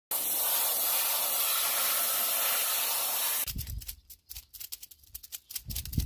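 Compressed air from an air-gun wand blasting dust out of a cylindrical air filter element: a steady, loud hiss that cuts off suddenly about three and a half seconds in. It is followed by a rapid run of sharp clicks and rattles from a steel roller chain being handled.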